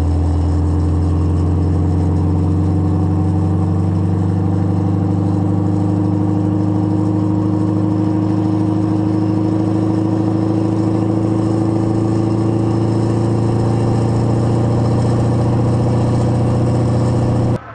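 V8-swapped Massey Ferguson tractor's engine running through twin upright exhaust stacks, heard from the driver's seat, its pitch climbing slowly and steadily as the tractor gains speed. The sound cuts off abruptly near the end.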